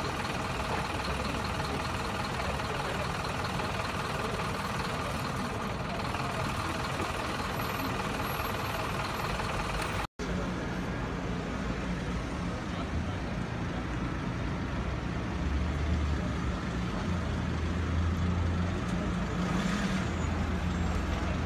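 Street noise of vehicle engines running. After a brief dropout about halfway, a nearby engine idles with a steady low hum.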